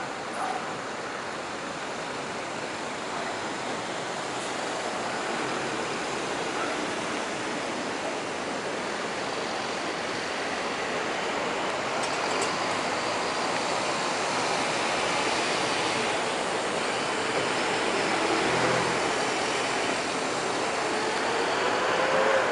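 Distant city traffic noise heard from high above: a steady rushing that grows slightly louder, with a faint wavering tone, like a passing engine, in the last few seconds.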